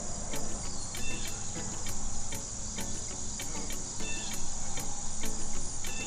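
Steady high-pitched insect chorus with a fast regular pulse, with faint short bird chirps about one second and four seconds in.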